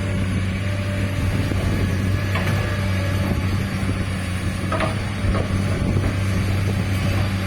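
Komatsu PC200-8 excavator's diesel engine running steadily under work, with a few short metallic clinks about two and a half and five seconds in.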